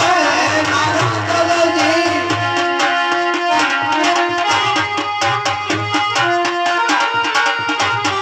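Instrumental Indian folk-theatre music: a harmonium holding and stepping between sustained notes over a hand drum keeping a quick, steady beat that picks up about two seconds in.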